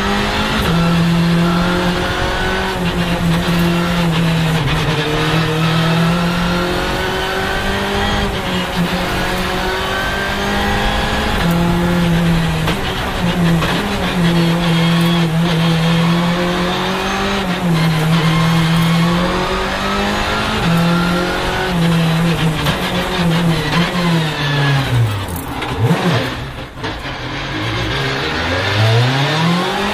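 Skoda Fabia R5 rally car's turbocharged 1.6-litre four-cylinder engine at full attack, heard from inside the cabin. It is held high and broken by quick gear changes every second or two. Near the end the pitch drops right down as the car slows for a bend, then climbs again as it accelerates away.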